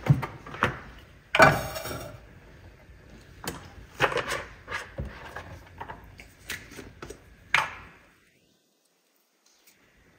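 Kitchen handling sounds: a string of short knocks and clicks, with a louder rattling clatter about a second and a half in. The sound cuts out entirely about eight seconds in.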